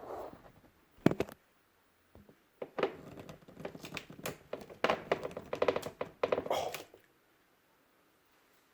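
Pull-tab lid of a metal can being worked by hand: a sharp click about a second in, then a run of clicking and scraping as the tab is pried and tugged without the lid coming open.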